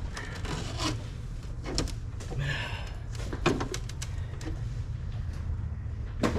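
Scattered clicks and knocks of hands forcing a stiff clamped part back into place on a car engine, over a steady low rumble.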